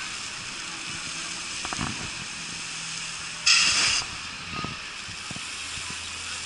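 A sudden loud hiss, like a blast of air or steam, lasting about half a second a few seconds in, over steady background noise.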